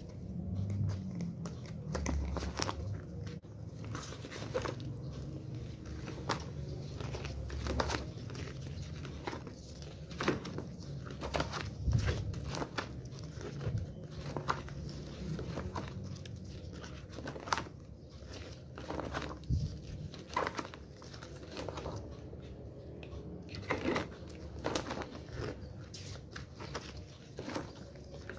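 Stiff photo pages of a ring-bound photobook turned by hand one after another: repeated paper rustles and soft flaps, with low handling bumps.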